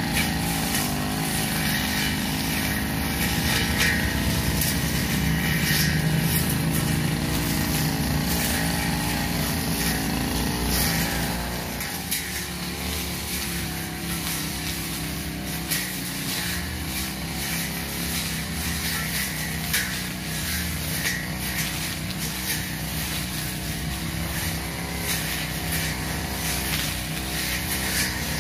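Two-stroke backpack brush cutter engine running at high speed while its long steel blade cuts through grass and weeds. The engine note shifts a little and gets slightly quieter about twelve seconds in.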